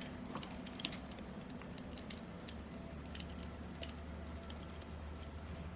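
Scattered light metallic clicks and taps of small screws and tools being handled while fasteners are started into a model engine's case, a few clicks a second apart, over a steady low hum.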